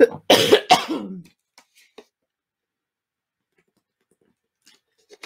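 A woman coughing and clearing her throat in a short burst of several coughs over about the first second, then only a few faint small clicks. The coughing comes from an irritated throat.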